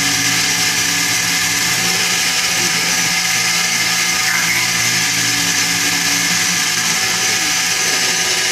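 Small benchtop milling machine running steadily, its end mill cutting into an aluminium bar. A constant whine with several steady tones sits over a hiss of cutting noise.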